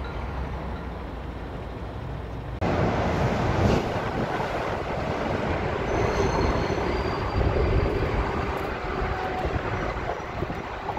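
Road traffic: a low steady rumble of vehicles at a junction, then from about two and a half seconds in a louder, even rushing noise of traffic echoing under a concrete overpass, with faint high squeals a few seconds later.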